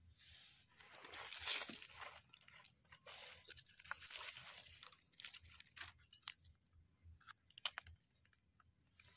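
Dry leaf litter and soil crunching and rustling as a gloved hand and a knife dig a small button mushroom out of the forest floor. The loudest rustle comes about a second and a half in, followed by scattered short scrapes and clicks.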